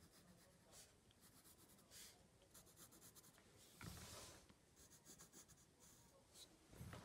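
Faint scratching of a graphite pencil going over lines on white card, with a brief louder rub of the hand and card about four seconds in.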